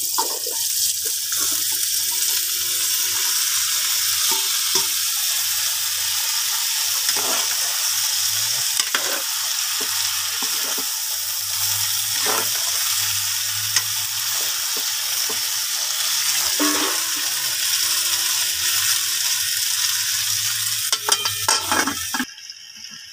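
Oil sizzling steadily in a metal pot as a sauté of garlic, onion, tomato and taro runners is stirred, with scattered clicks of the utensil against the pot. Near the end a metal lid clatters on and the sizzle drops away sharply.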